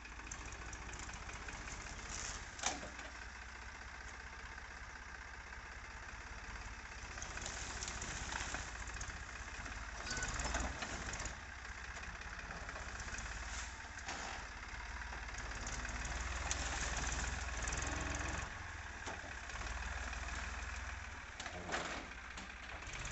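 Powertrac tractor's diesel engine running as the tractor reverses, pushing its rear-mounted land leveller into a heap of dung; the engine sound swells and eases several times as the load changes, with a few sharp knocks.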